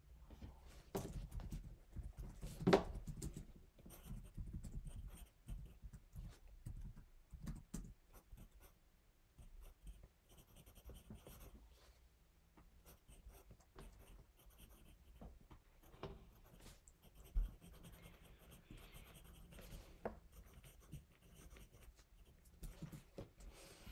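Pencil writing on notebook paper: faint scratching in short strokes with scattered light clicks, and a sharper knock about three seconds in and again near seventeen seconds.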